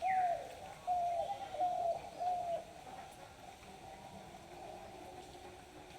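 A bird calling: four short, arched call notes in quick succession over the first couple of seconds, then a pause.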